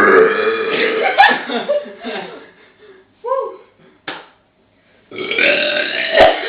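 A person burping on purpose in a burping contest: a long, drawn-out burp lasting about two seconds, a couple of short sounds, then another long burp starting about five seconds in.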